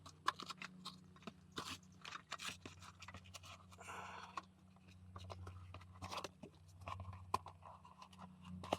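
Scattered crunching clicks and scrapes of a can of PVC primer being handled and its cap worked open, over a faint steady low hum.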